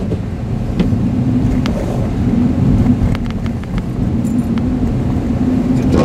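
Steady engine and road drone of a Honda car driving slowly on a snow-covered road, heard from inside the cabin, with a few faint ticks.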